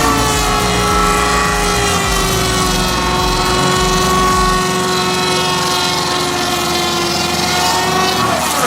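Tree-cutting saw machine running: a loud, steady mechanical whine with several overtones that slowly drops in pitch and cuts off near the end, over a low pulsing rumble in the first half.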